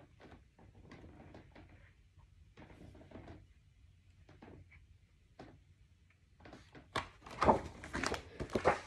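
A paperback picture book handled close to the microphone while its pages are shown and turned. Faint scattered taps and paper rustles come first, then louder rustling and several sharp knocks in the last two seconds.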